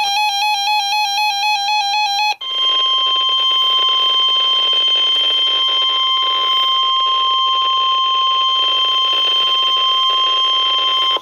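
NOAA Weather Radio emergency alert: a harsh, warbling electronic burst for about two seconds, the end of the EAS digital data header. After a brief break comes the steady 1050 Hz warning alarm tone, held for about nine seconds, which signals that a warning such as a severe thunderstorm warning follows.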